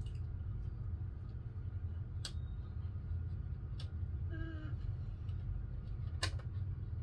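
A few sharp plastic clicks from toy blaster parts being handled and fitted together, over a steady low hum. About four and a half seconds in there is a brief whine.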